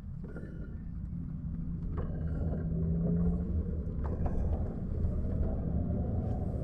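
Car on the move: a steady low rumble of engine and road noise with a slowly rising engine tone, and two sharp clicks about two and four seconds in.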